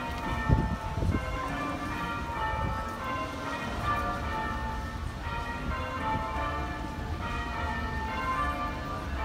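Church bells ringing in a rapid sequence of different notes, each note ringing on into the next, as in change ringing.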